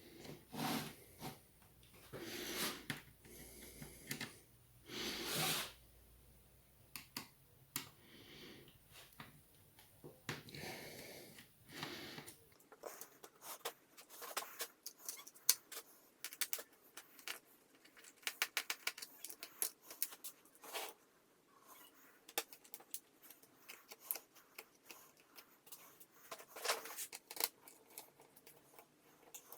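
Light clicks, taps and scraping as hands and small tools handle a laptop's metal shielding and plastic internal parts. The first half has longer rustling scrapes; after about twelve seconds there is a rapid run of small clicks and ticks.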